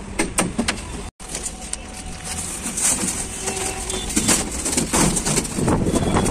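Scraping and knocking of a large thin steel sheet being lifted and handled, with a brief gap about a second in.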